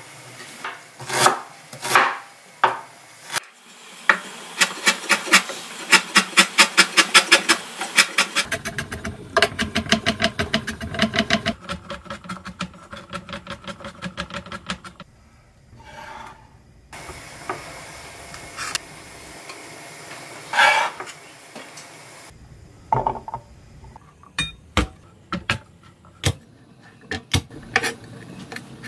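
Chef's knife chopping and mincing ginger on a wooden cutting board: fast runs of sharp knife strikes on the wood, several a second, broken by short pauses. Near the end, the knife slices garlic cloves.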